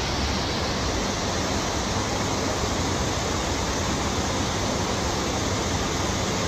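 Heavy rain pouring onto a flooded street, with floodwater rushing past: a steady, unbroken wash of noise.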